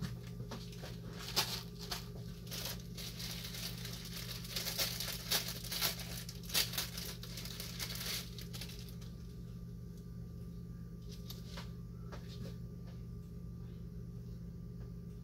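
Thin clear plastic bag crinkling as it is handled and opened by hand for about the first eight seconds, then quieter with a few light clicks as it is dipped into a bowl of plastic aroma beads. A steady low hum runs underneath.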